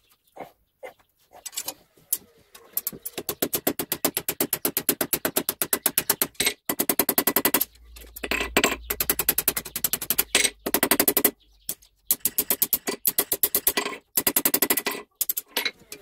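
Ball-peen hammer striking a hot steel bar on an anvil in quick runs of several blows a second, with the metal ringing and short pauses between runs. The first couple of seconds hold only a few scattered knocks.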